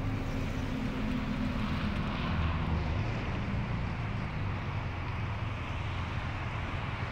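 Steady low engine rumble with a hiss above it.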